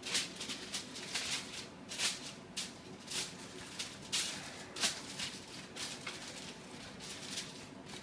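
Aluminium foil crinkling as it is handled, a string of uneven crackles and rustles.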